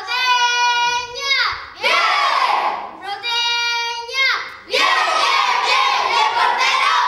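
A group of children chanting together: two long held shouts in unison, each dropping away in a falling glide, then many voices cheering and shouting at once from about five seconds in.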